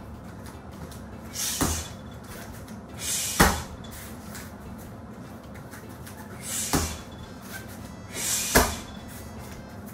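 A heavy punching bag struck four times, about two seconds apart, each blow a dull thud with a sharp hissing exhale from the fighter.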